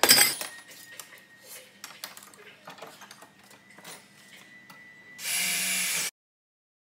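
Light scattered clicks and knocks of metalwork, then a power drill runs steadily for about a second near the end and cuts off suddenly.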